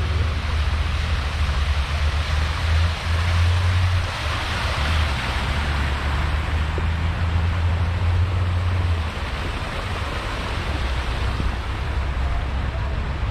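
Wind buffeting the microphone: a low rumble over a steady rushing noise, the rumble easing about nine seconds in.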